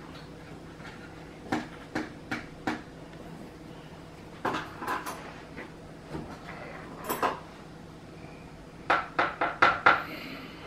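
Scattered light knocks and clinks of kitchen utensils and dishes being handled, with a quick run of about six taps near the end.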